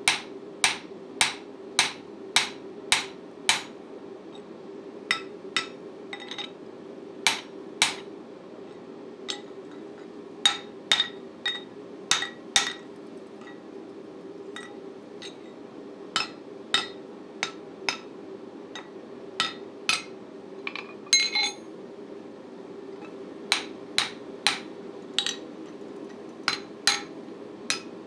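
Hand hammer striking hot tool steel on an anvil, forging an axe head: sharp ringing blows in runs of about two or three a second with short pauses between. A steady hum from the forge blower runs underneath.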